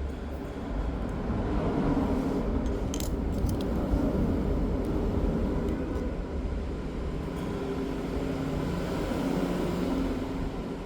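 Steady low motor rumble, with a few light clicks about three seconds in.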